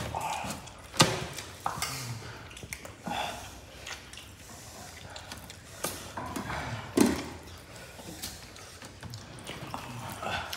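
Eating sounds: chewing and mouth noises as fried chicken and rice are eaten by hand, with scattered clicks and knocks against the food tray. The sharpest knock comes about a second in, and another about seven seconds in.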